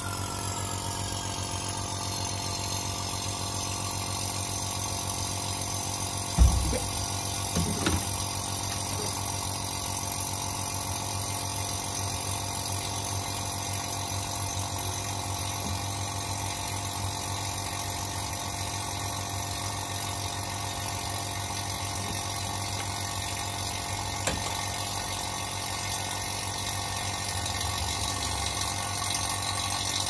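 Electric refrigerant vacuum pump running steadily, evacuating a car's air-conditioning lines through manifold gauge hoses. A knock about six seconds in and a lighter one near eight.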